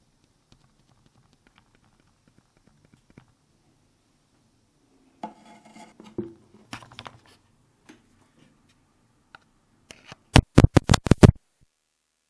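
Homemade piezo hydrophone picking up handling and contact noise: faint scratching, a stretch of rubbing and scraping about halfway through, then a quick run of about eight loud sharp taps near the end.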